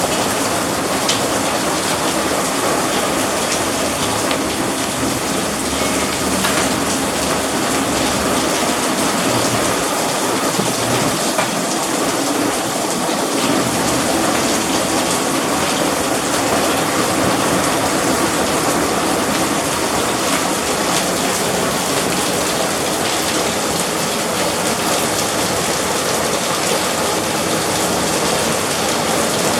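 A hailstorm: heavy rain and hail pouring down steadily, with a few sharper hits standing out now and then.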